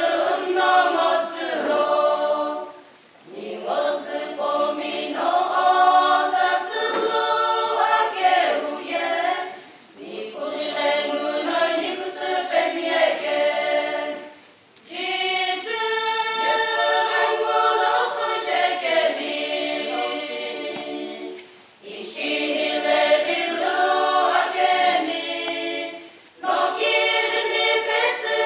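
Women's choir singing unaccompanied in several parts, in sung phrases broken by brief pauses for breath.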